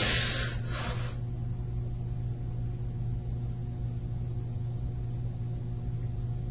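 A woman sniffling twice in quick succession, then a steady low electrical hum on the recording.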